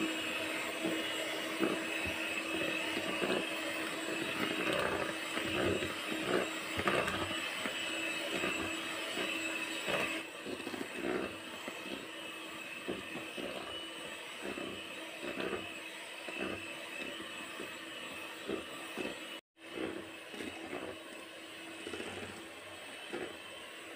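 Hand-held electric mixer running at low speed, its beaters creaming butter and sugar in a plastic bowl: a steady motor hum with irregular scraping and clatter of the beaters. The sound cuts out for an instant about four-fifths of the way through.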